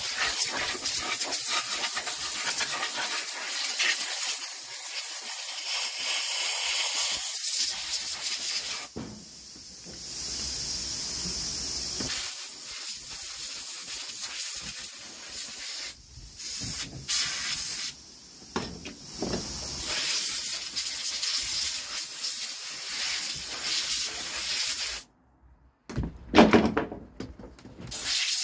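Compressed-air blow gun hissing as dirt is blown off a dismantled chainsaw and its bar. The hiss comes in long blasts that weaken, break off and restart several times, with louder gusty bursts near the end.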